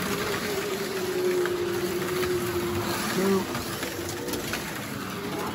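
Electric motors of slot cars running laps on the track, a steady whine that breaks and wobbles once about three seconds in before settling back to an even pitch.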